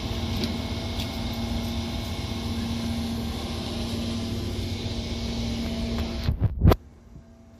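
Amtrak Carolinian passenger cars rolling past: a steady rumble of wheels on rail with a low hum. About six and a half seconds in come two loud thumps, then the sound drops suddenly to a quiet background.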